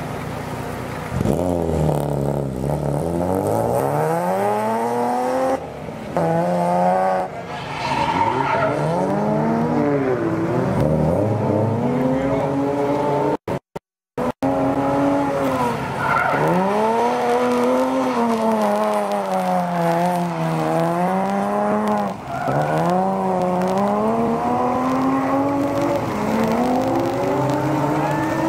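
Drift car engine revving hard, its pitch sweeping up and down again and again as the throttle is worked through the slides, with tyres screeching. The sound cuts out for about a second near the middle.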